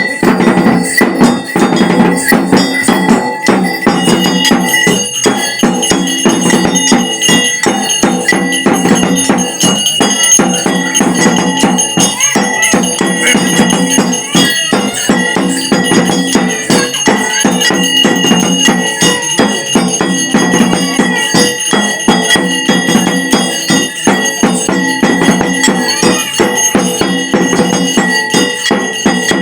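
Traditional Uttarakhandi devotional ritual music: rapid, unbroken drumming with bells ringing steadily over it, without singing.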